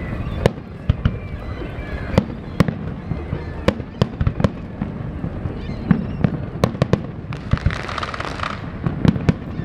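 Aerial fireworks shells bursting in a display: an irregular series of sharp booms, at times several a second, over a steady low rumble, with a short stretch of higher hissing noise about three-quarters of the way through.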